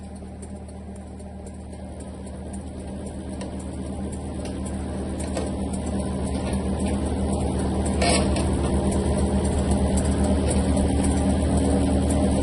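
Steady low hum of running machinery, growing steadily louder, with a single sharp knock about eight seconds in.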